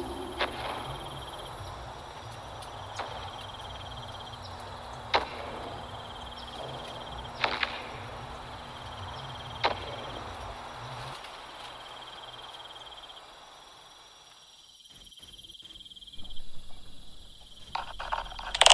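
Soundtrack ambience of crickets chirping in a steady high trill over a low rumble, broken by a few sharp clicks a couple of seconds apart. The ambience fades out about three-quarters of the way through, and a few crackling clicks follow near the end.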